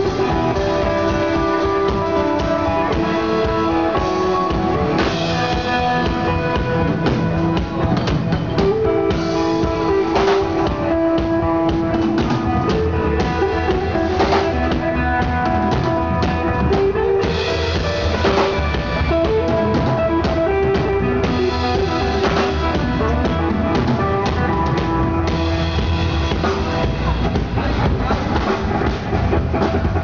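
A three-piece band playing live, led by a busy drum kit with bass drum and cymbal hits over guitar. The low end grows heavier from about halfway in.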